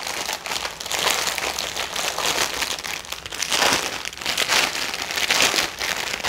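Clear plastic wrapping crinkling in irregular bursts as hands pull it open.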